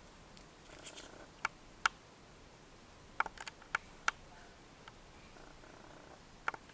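Light handling sounds of small paper cards and stickers: a soft rustle about a second in, then a scatter of short, sharp clicks and taps, several bunched together around the middle, over a faint steady background hiss.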